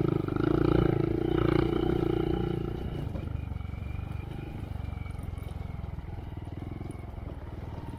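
2023 Honda Monkey's 124 cc single-cylinder engine running through a Yoshimura RS3 exhaust with spark arrestor, held on the throttle. About three seconds in it eases off to a lower, quieter note.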